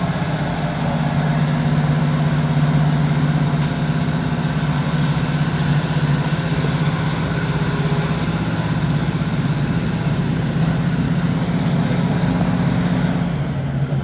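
Underfloor Cummins diesel engine of a Class 156 diesel multiple unit working under power as the train pulls away from a station, heard from inside the passenger saloon as a steady low drone over wheel and track noise. The engine note drops away near the end.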